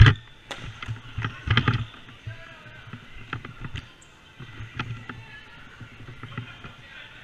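Box lacrosse play on an indoor rink: sharp clacks and thuds of sticks and ball, loudest right at the start with a second cluster about a second and a half in, then scattered lighter knocks, echoing in the arena.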